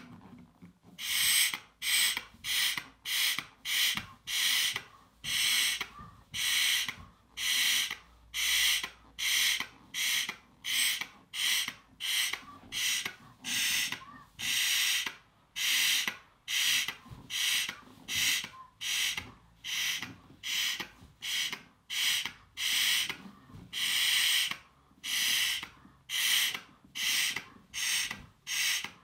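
A person blowing up a 24-inch latex balloon by mouth: quick, hissing breaths in a steady rhythm of nearly two a second as the balloon is inflated.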